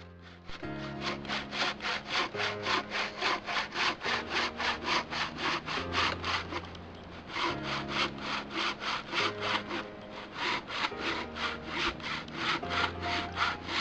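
Hand saw cutting through a log in quick back-and-forth strokes, about three a second, with two short pauses. Low background music plays underneath.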